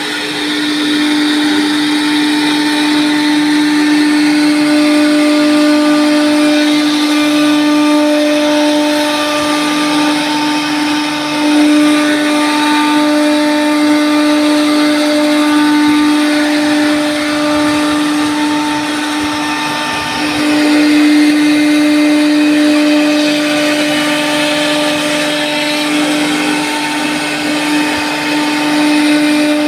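Ganglong multi-head CNC wood router, its spindle motors running with a steady high whine while the bits cut grooves into a solid wood door panel.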